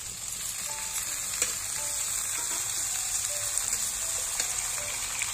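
Chopped tomatoes and sprouted moong sizzling steadily in hot oil in a metal kadai, with a few sharp clicks of the metal spatula stirring against the pan.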